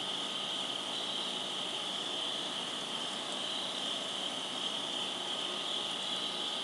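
Crickets chirping in a steady chorus that blends into one continuous high trill, with no other sound standing out.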